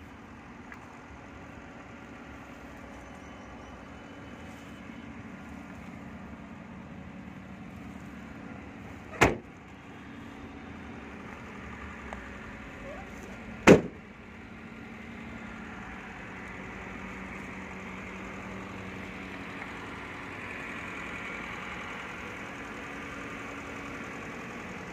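A steady low hum, broken twice by a sharp thump, the two about four and a half seconds apart.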